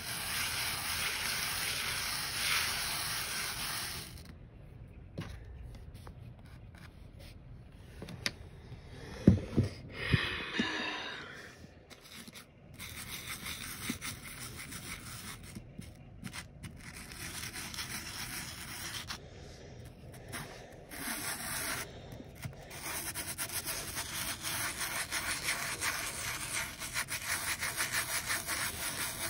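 A flat polished stone pushed and dragged through fine white sand on a paper plate: a soft gritty rubbing hiss that stops for a while, with a few knocks about nine to ten seconds in.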